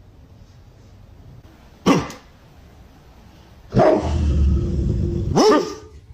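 Barking: one short, sharp bark about two seconds in, then a longer, loud bark of about two seconds near the end that rises and falls in pitch as it finishes.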